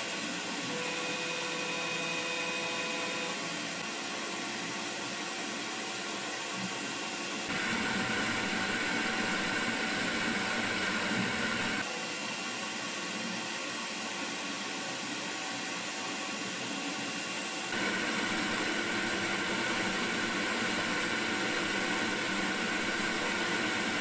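Makera Z1 desktop CNC spindle driving a 1/8-inch single-flute end mill through an epoxy block on the rotary fourth axis in a roughing pass, with the vacuum dust extraction running. A steady rushing noise with several held tones that steps abruptly louder and quieter a few times.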